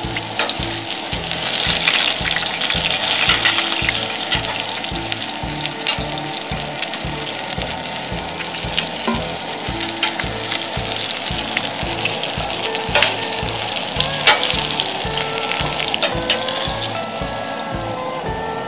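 Beer-battered walleye pieces sizzling and crackling as they fry in olive oil in a skillet on a propane camp stove. A few sharp clicks of metal tongs on the pan come through as the pieces are turned and lifted out.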